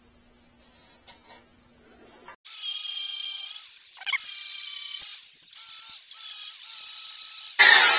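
Faint handling clicks, then an electric angle grinder starts up and runs with a high-pitched whine that dips and wavers a few times. A louder, harsh burst comes near the end.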